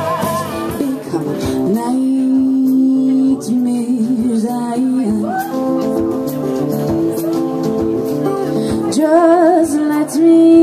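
Live band music: a woman singing, with vibrato on her held notes near the end, over strummed acoustic guitars, electric guitar and drums.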